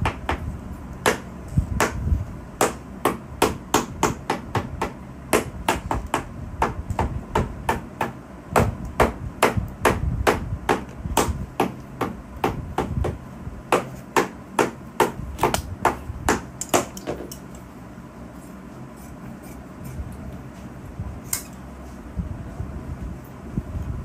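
Rapid hammer taps, sharp knocks about two to three a second, that stop about two-thirds of the way through, with one more knock a few seconds later.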